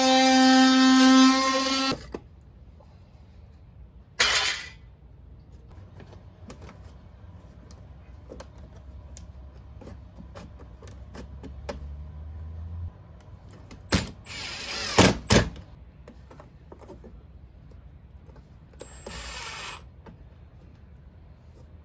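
Cordless drill running with a steady high whine that cuts off about two seconds in, then short drill bursts about four seconds in, around fifteen seconds and near the end, with light clicks and a few sharp knocks between them as it works at an opening in the camper's siding.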